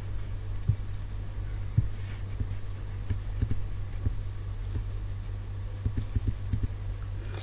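Steady low electrical hum, with scattered soft low thumps.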